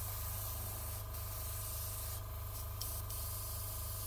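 Gravity-feed airbrush hissing steadily as air is fed through it, cutting out briefly a few times as the trigger is let off, over a low pulsing hum.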